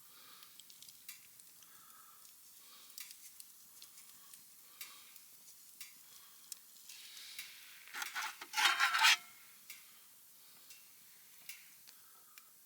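Camp cooking sounds: a utensil stirring and clinking in a pan over faint sizzling, with a louder scrape about eight seconds in.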